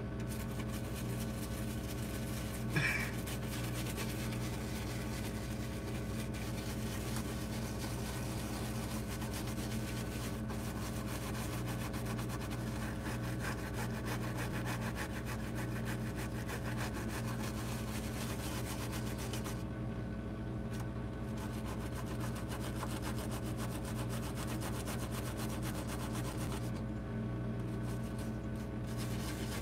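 Toothbrush bristles scrubbing a laptop motherboard wet with 91% isopropyl alcohol: a fast, scratchy rubbing that stops briefly twice in the second half. A steady low hum runs underneath, and a brief sharp noise comes about three seconds in.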